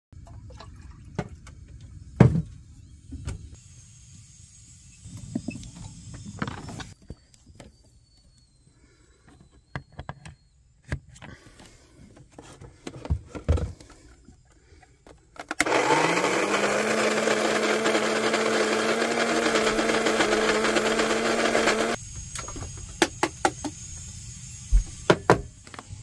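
A small electric countertop kitchen appliance runs for about six seconds, its motor pitch rising as it spins up, then holding steady before cutting off. Kitchen clatters and knocks come before and after.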